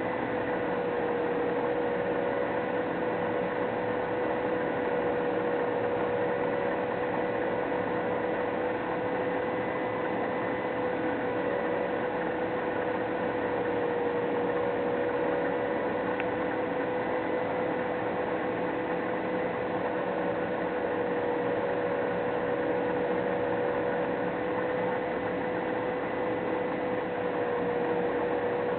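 Steady machine hum over a constant hiss, with a slightly wavering mid-pitched tone.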